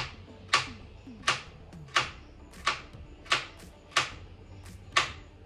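Knife chopping on a cutting board: about eight sharp, evenly spaced chops, roughly one every 0.7 seconds, each with a short ring.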